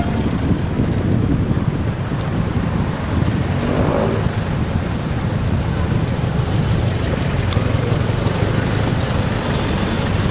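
Motorcycle engine running as it rides through slow city traffic, with jeepneys alongside and wind buffeting the microphone.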